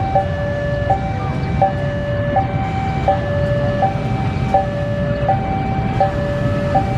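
Level-crossing warning alarm sounding a repeating two-tone high–low chime, switching about every three-quarters of a second, over the low rumble of an approaching CC 201 diesel locomotive hauling ballast wagons.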